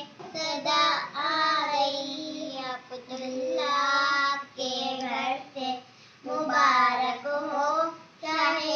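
Two young girls singing an Urdu naat together, one voice on long, held melodic phrases with short pauses between lines.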